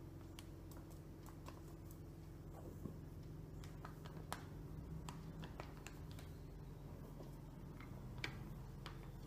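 Faint, scattered light clicks and crinkles from handling a plastic bag of wheat flour and a steel tumbler as flour is poured and measured, over a low steady hum. The sharpest click comes about eight seconds in.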